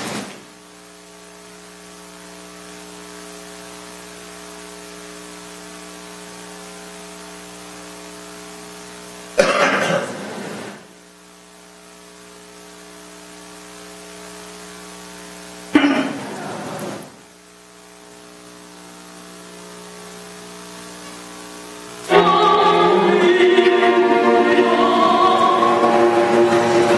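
Steady electrical mains hum while the video loads, with two brief louder sounds about ten and sixteen seconds in. About 22 seconds in, orchestral music with an operatic soprano starts loudly.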